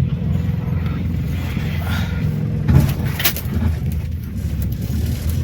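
Engines running low and steady under strain as a truck tows a car up a driveway, with a couple of sharp knocks about three seconds in.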